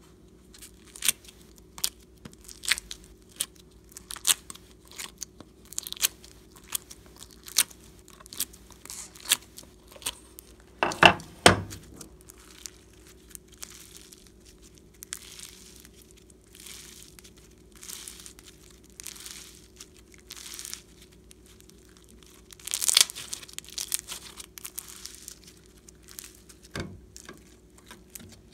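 Clear plastic mold flexed and crinkled, giving a string of sharp clicks and crackles as slime pieces are worked out of it. This is followed by sticky stretching, tearing and crackling of foam-bead slime being pulled and pressed, with a louder crackle near the end.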